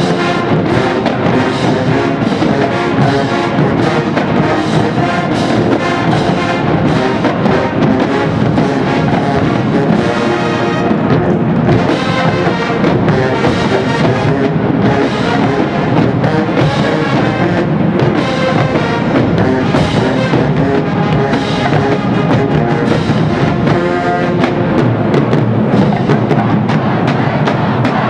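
Marching band playing loudly: a full brass section over a drumline beating steadily throughout.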